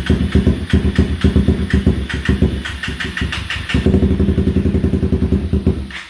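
Honda CBR 300R's single-cylinder engine being cranked on the electric starter in a rapid, pulsing run. It stumbles without catching and stops about six seconds in. It is struggling to start on fresh fuel after stale gas was drained from the tank.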